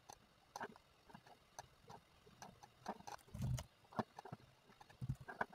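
Faint, irregular clicks and taps of a computer mouse and keyboard being used, with a dull low thump about three and a half seconds in.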